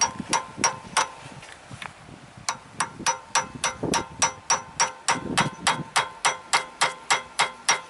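Hammer tapping on a socket extension to drive a pilot bushing into the rear of a Ford 302 5.0 V8's crankshaft: light, ringing metallic taps, a few at first, then a steady run of about three or four taps a second from about two and a half seconds in.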